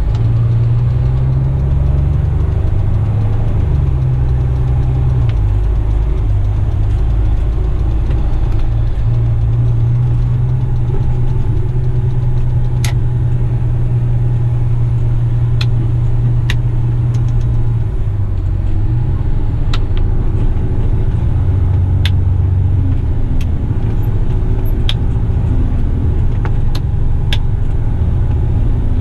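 Heavy rigid truck's diesel engine running at low revs while reversing, its low drone stepping up and down in pitch a few times. About ten sharp clicks come over it in the second half.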